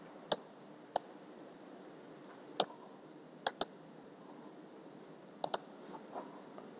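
Computer mouse clicking as a right-click menu is worked: about seven sharp clicks spread through, including two quick double-clicks, over a faint steady hiss.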